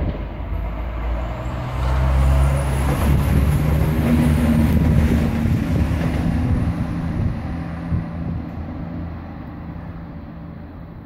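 ScotRail diesel multiple unit passing, its underfloor diesel engines droning with a low rumble from the wheels. It is loudest from about two to six seconds in, then fades as the train moves away.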